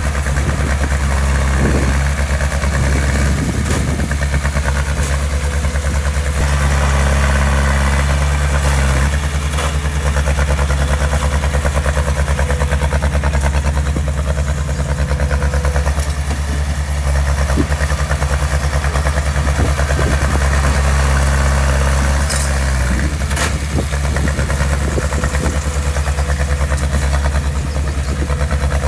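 Diesel engine of heavy construction machinery running steadily close by, its speed shifting slightly a few times, with a couple of sharp knocks a little past the middle.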